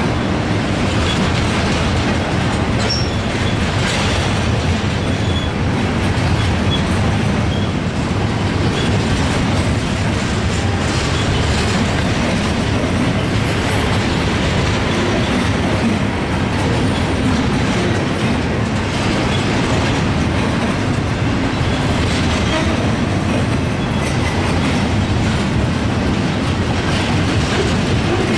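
Union Pacific double-stack freight train's well cars rolling past: a steady, loud rumble of steel wheels on rail with clickety-clack over the rail joints and occasional faint wheel squeal.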